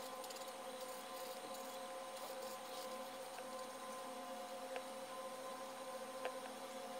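Ohuhu marker nib stroking across paper as lanterns are coloured in, faint scratching over a steady hum, with a couple of light ticks near the end.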